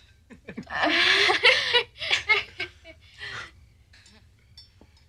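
Laughter in a run of bursts, loudest over the first two seconds and dying away by about three and a half seconds in.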